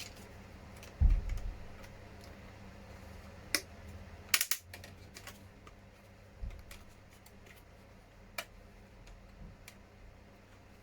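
Scattered light clicks and taps of small injection-moulded plastic body parts being handled and pressed together, with a dull low thump about a second in and a sharper double click about four seconds in.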